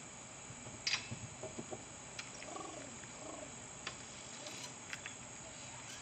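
Outdoor ambience of insects chirring steadily in the background, with a few sharp clicks, the loudest about a second in.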